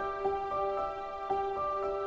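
Gentle instrumental background music: a slow melody of ringing single notes over a held lower note.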